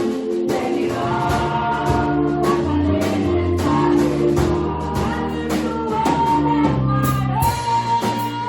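Church choir singing a gospel song over a band, with a steady beat.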